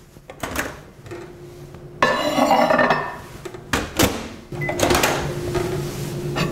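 A plate clattering as it is set into a Bosch built-in microwave, the door shutting with a knock about four seconds in, a short keypad beep, then the microwave starting up and running with a steady hum.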